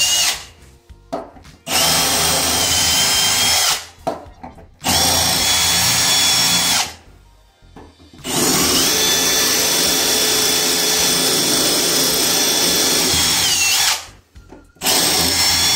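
Milwaukee FUEL cordless drill boring holes into a ceramic tile floor. The drill runs with a steady high whine in five bursts with short pauses between them. The longest burst lasts about six seconds and dips briefly in pitch near its end.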